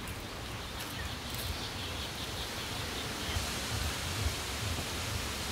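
Outdoor wind on the microphone: a steady hiss with irregular low rumbles.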